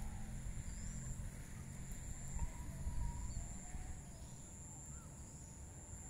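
Outdoor ambience: a low rumble of wind on the microphone, a steady high-pitched insect drone, and a few faint, short bird chirps.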